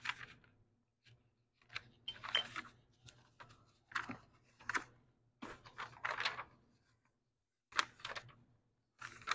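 Pages of a paper service manual being handled and leafed through: a string of irregular rustles and flaps of paper.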